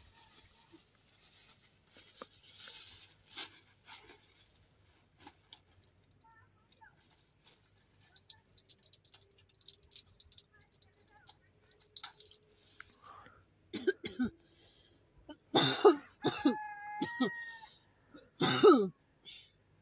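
A person coughing: several hard coughs in the last third, with a brief pitched vocal sound among them. Before that, only faint rustling and small clicks.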